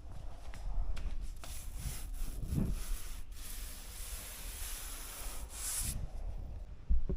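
Scraping and rubbing on a thermalite transom core panel, with low knocks and a sharper knock near the end.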